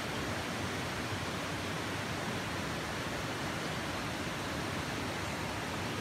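Waterfall and creek water running steadily: an even, unbroken rush of noise.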